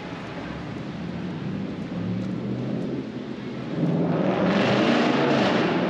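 A motor vehicle's engine drawing near and passing on a rain-wet street; it grows louder, and a tyre hiss swells about four seconds in. A steady rain hiss sits underneath.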